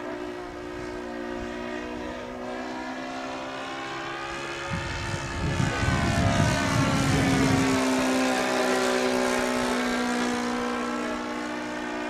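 Seagull Models Bücker Jungmeister radio-controlled biplane flying past, its engine and propeller drone getting louder in the middle of the pass. Its pitch rises and then falls as it goes by.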